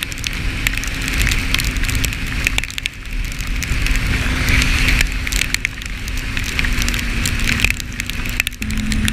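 ATV engine running at a steady cruising speed on a wet road, its note dipping slightly near the end, under tyre and wind noise, with raindrops crackling and ticking on the camera.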